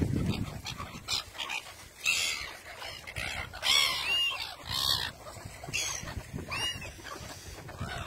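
A flock of gulls calling: a run of short squawks about a second apart, each rising and falling in pitch, starting about two seconds in.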